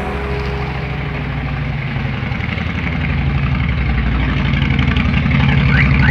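Cruiser motorcycle engine running at low revs with a steady pulsing beat, growing louder as the bike rides up and passes close by near the end.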